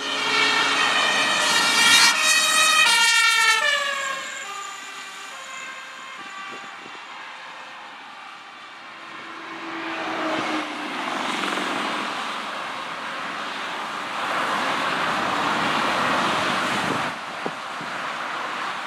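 Fire engine siren sounding loud as the truck comes by, its pitch dropping as it passes a few seconds in. The siren then fades away under the steady rush of motorway traffic driving past.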